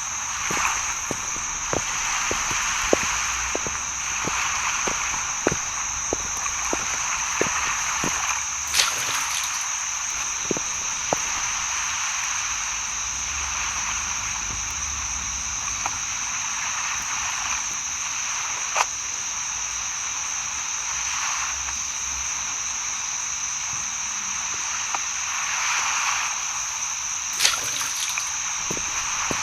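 Night-time outdoor ambience: frogs croaking over a steady, high-pitched insect-like trill, with short clicking calls coming regularly through the first several seconds and more sparsely after.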